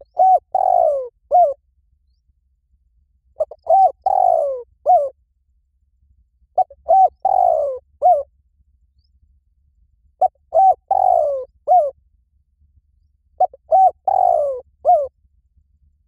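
Spotted dove cooing: five repeated phrases about three seconds apart. Each phrase is a couple of short coos, then a longer falling coo, then one short coo.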